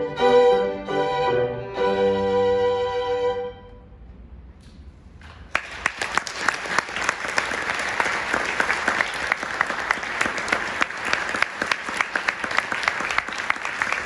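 Two violins and a piano play the closing notes of a piece, which stop about three and a half seconds in and ring away. About two seconds later an audience breaks into applause that carries on steadily.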